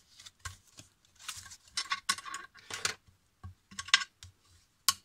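White cardstock being folded and handled by hand: a string of short, irregular papery crackles and rustles as the box's scored flaps are bent along their creases.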